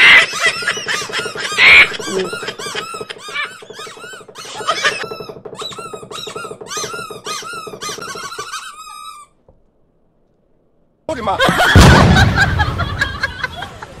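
A flock of small cartoon birds chattering in quick, high, squeaky peeps that pile over one another. They break off into about two seconds of silence, then a sudden loud crash with a deep thud comes near the end.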